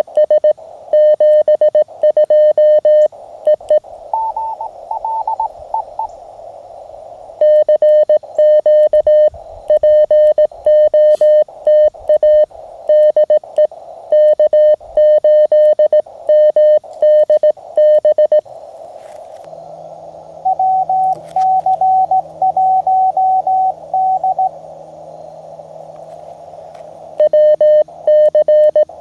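Morse code (CW) on a Mountain Topper (MTR) QRP transceiver: the operator's own keyed sidetone, one steady tone in quick dots and dashes. It pauses twice, about four seconds in and again about twenty seconds in, for a fainter, higher-pitched CW reply from another station over the receiver's band hiss.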